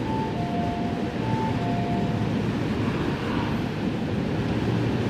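Sydney Metro train's door chime, a high note then a lower note sounding twice, as the doors open, over the steady hum of the train standing at the platform.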